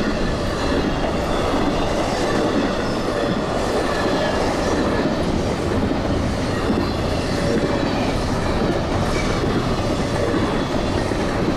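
CSX Q009 intermodal freight train's double-stack well cars rolling past, a steady rumble and clatter of steel wheels over the rail joints.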